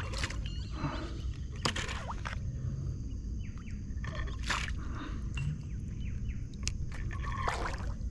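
Water sloshing and several short splashes around a kayak as a hooked fish is fought on a bent rod, over a steady low rumble.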